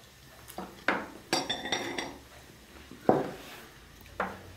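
Teaspoons, tea glasses and saucers clinking: a few separate sharp clinks, one ringing for about half a second, and a louder knock about three seconds in.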